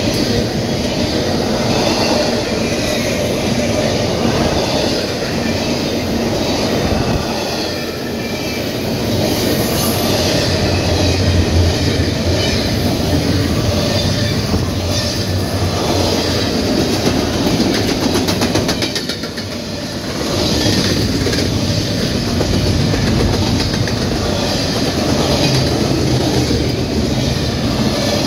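Double-stack intermodal freight train of container-laden well cars rolling past close by: a steady, loud noise of steel wheels running on the rails, with brief dips near 8 s and 19 s.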